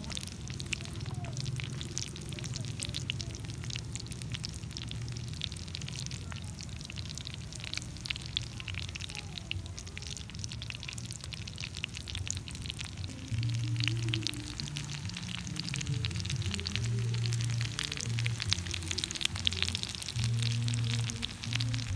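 Food sizzling and crackling as it cooks on a hot surface, with dense fine pops throughout. Background music plays under it and grows louder about halfway through.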